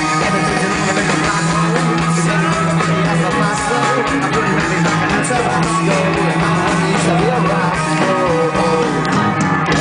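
Rock band playing live, with electric guitars, bass, drums and a sung vocal, heard at a concert.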